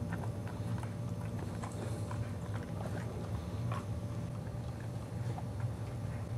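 Soft, irregular clicks and mouth smacks from a Boxer puppy and a Maltese sniffing and mouthing at each other, over a steady low hum.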